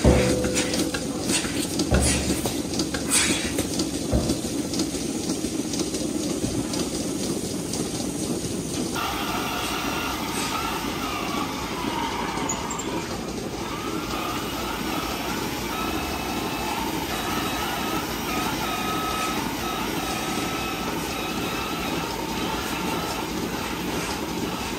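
Milking parlour machinery running steadily, with sharp clanks of metal milking clusters and fittings in the first few seconds. About nine seconds in the steady machine noise changes, with faint wavering whines over it.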